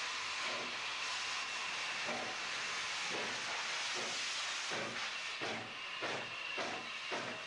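Saddle-tank steam locomotive starting away: a steady hiss of steam from its open cylinder drain cocks, with exhaust chuffs that come quicker and quicker as it gathers speed.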